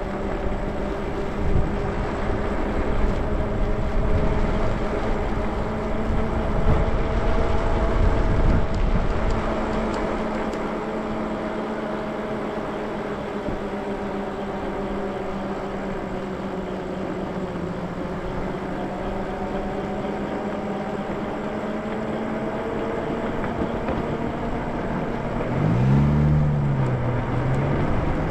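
An electric bike riding on a wet road, its motor whining in steady tones that drift slowly up and down in pitch with speed. Under the whine run wind rush and road noise, heavier in the first half. Near the end a brief wavering tone rises and falls.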